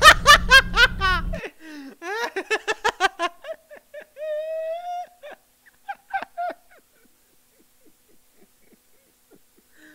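A man laughing hard. There are rapid bursts of laughter for the first three seconds, then one long high hooting laugh about four seconds in. A few short gasps follow, and it fades to near quiet for the last three seconds.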